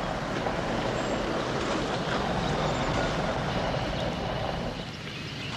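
GMC Vandura van driving through brush, its engine running under a steady rushing noise that eases off about five seconds in.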